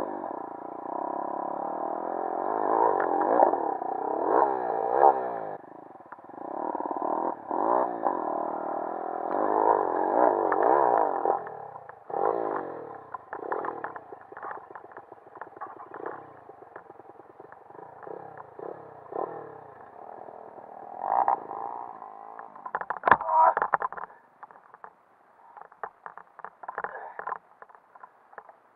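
Pit bike's single-cylinder four-stroke engine revving up and down hard under load on a dirt climb, heard through a low-quality camera microphone. Near the end comes a sharp knock and the engine sound falls much quieter: the bike has gone down in the grass.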